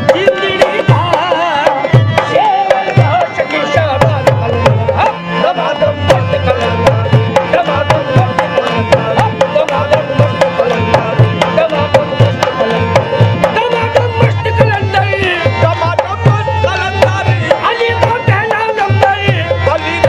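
Devotional background music: tabla playing a steady rhythm under a wavering melody line.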